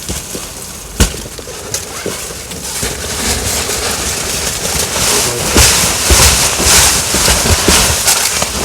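Snow-laden tent fabric being shaken and brushed clear of snow: a sharp knock about a second in and a lighter one soon after, then a run of swishing, rustling strokes that grows louder and repeats roughly every half second.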